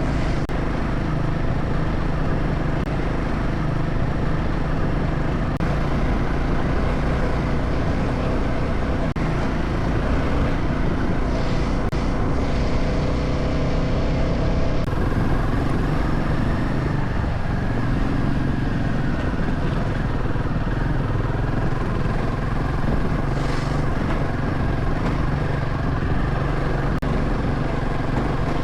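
Enduro motorcycle engine running steadily under way, its note shifting a few times.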